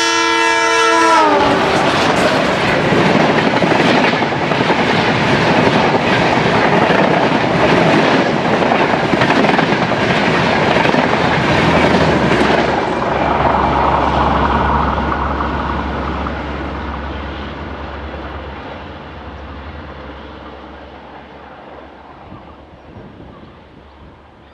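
Diesel locomotive hauling an express train blows its horn as it reaches the microphone, the chord dropping in pitch as it passes. Then the coaches rush by at speed with a clickety-clack of wheels on the rails. The noise fades away over the last ten seconds or so as the train moves off.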